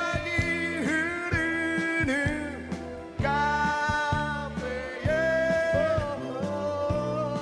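Pop band music with a melody of long held notes over keyboards and bass, the closing music of a live stage performance.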